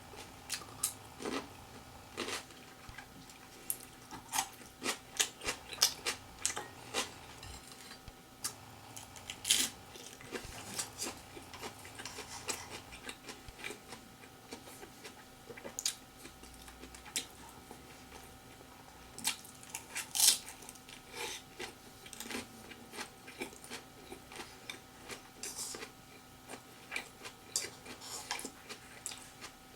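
Close-up eating sounds: irregular crunches and clicks of someone biting and chewing crisp food such as lettuce, with now and then a light tap of a utensil.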